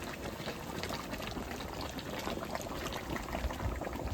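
Fish head curry boiling in an open pot, a steady bubbling with many small pops.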